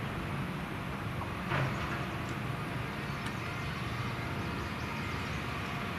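Heavy diesel engine running steadily, with a single knock about a second and a half in and a few faint ticks.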